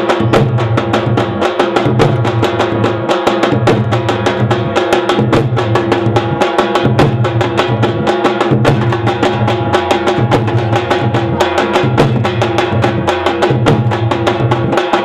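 Several large drums played together with sticks, a bare-hide barrel drum and big bass drums, in a fast, driving rhythm of dense strokes with deep booming beats. A steady held tone drones underneath.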